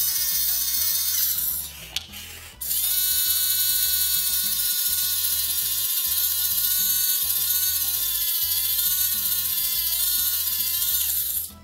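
Small electric motor of the Play-Doh Drill 'n Fill toy dental drill whirring with a steady high whine. It stops for about a second near the two-second mark, then runs again, wavering slightly in pitch, and cuts off near the end.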